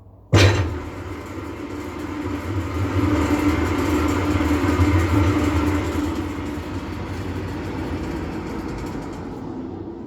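Kolbe MWE 32 mixer-grinder's 5.5 kW three-phase electric motor switching on with a sudden start, then running steadily with a low hum, and beginning to wind down near the end.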